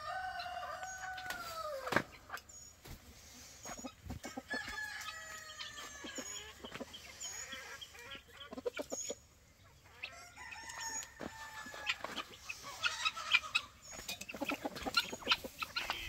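Chicken flock: roosters crowing in three long, slightly falling calls (near the start, about five seconds in and about eleven seconds in), with hens clucking and short high chirps in between, busier in the last few seconds.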